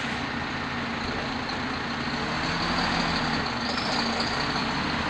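A MAN heavy-haulage truck's diesel engine running as it pulls an oversized load slowly toward the listener. It gets a little louder about three seconds in.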